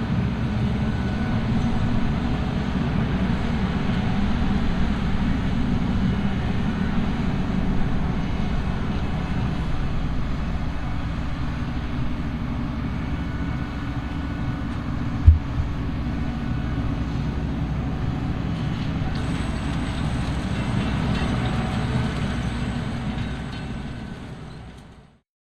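Heavy potato-harvesting machinery running steadily, a continuous low mechanical noise. A single sharp thump about 15 seconds in, and the sound fades out near the end.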